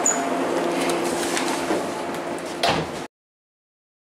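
Inside a KiHa 187 diesel railcar standing at the platform: a steady hum with light clicks and knocks, and a sharp knock near the end. The sound then cuts off abruptly about three seconds in.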